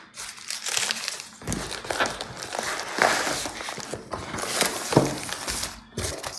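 Packing wrap crinkling and rustling, with cardboard scraping, as wrapped items are pulled out of a shipping box. It comes as a dense run of crackles and rustles, then one short rustle near the end.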